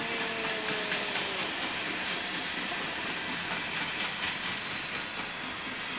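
Freight train cars rolling past at close range: a steady rumble and hiss of steel wheels on rail, with occasional clicks. A faint tone slides down in pitch and fades out about a second and a half in.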